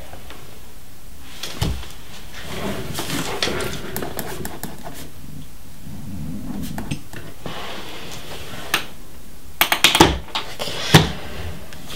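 Paper and notebook handling at a desk: rustling and shuffling pages, with a single knock early on and a cluster of sharp slaps and taps about ten seconds in, over a steady hiss.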